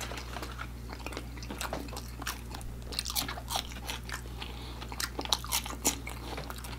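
Close-miked chewing of crispy fried KFC chicken nuggets: irregular sharp crunches and crackles of the breading as it is bitten and chewed.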